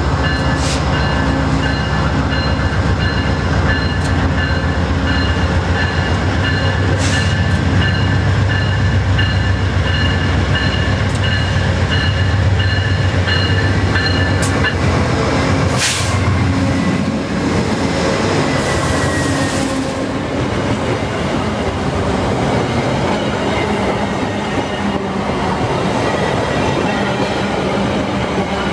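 VIA Rail passenger train led by a GE P42DC diesel locomotive, rolling past close by. For about the first half, the locomotive's diesel engine runs with a deep rumble while a bell rings steadily in even strokes. After the bell stops, the coaches roll by on the rails, with a sharp click and a short hiss about two-thirds of the way in.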